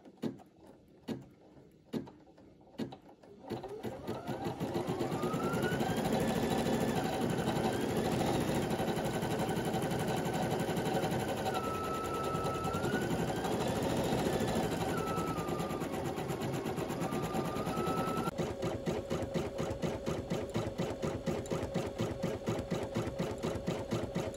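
Brother Innovis NV880E embroidery machine stitching out text: a few separate clicks at first, then rapid needle stitching with a whine that rises and falls in pitch. About three-quarters of the way in, it settles into a steadier rapid ticking.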